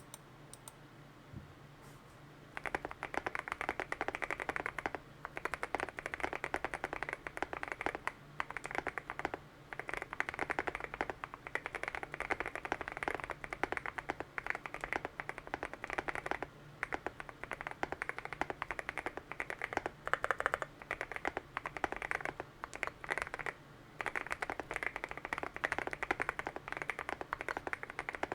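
Fast typing on an Akko MOD007 v2 mechanical keyboard with lubed Gazzew Boba U4T tactile switches on a polycarbonate plate, in a foam- and tape-modded case. The keystrokes start about two and a half seconds in and run in dense bursts with short pauses.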